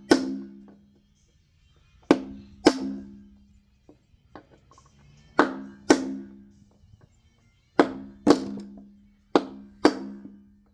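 Hammer blows on metal, in pairs about half a second apart, each leaving a brief ringing tone.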